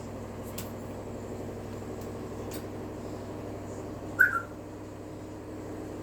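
African grey parrot giving one short, sharp two-part whistle about four seconds in, over a steady low hum.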